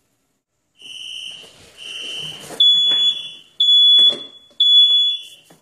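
Smoke alarm going off, set off by soldering fumes. It gives piercing high beeps about one a second: two softer ones, then three louder ones.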